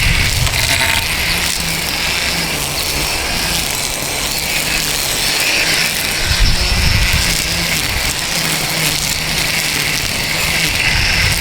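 Powered lawn equipment running steadily, a continuous motor hum under a broad hiss.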